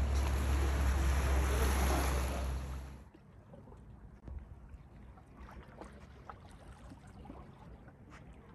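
Seashore sound: small waves washing onto a pebble beach with wind rumbling on the microphone. About three seconds in it cuts off abruptly to a much quieter shore, with water lapping faintly against rocks and scattered small clicks.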